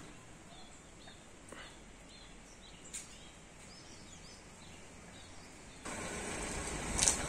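Small birds chirping in short, scattered calls over quiet open-air ambience, with a few faint clicks. About six seconds in, a louder steady noise sets in abruptly and covers them.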